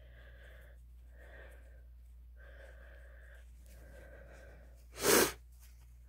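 A woman's four faint, catching breaths, building up to one loud, wet sneeze about five seconds in.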